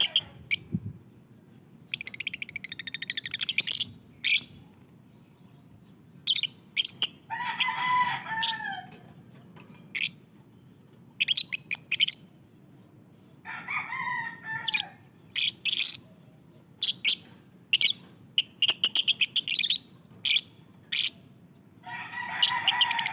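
Lovebirds chirping and chattering in bursts: shrill short chirps, fast rattling runs of calls, and now and then a lower, longer call that bends in pitch.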